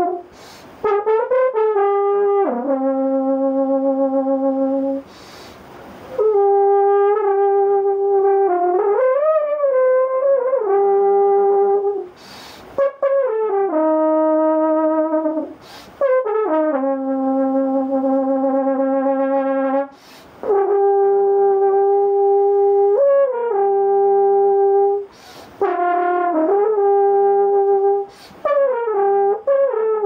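E-flat horn playing a jazzy improvisation: long held notes with bends and slides between them. The player takes a quick breath between phrases every few seconds.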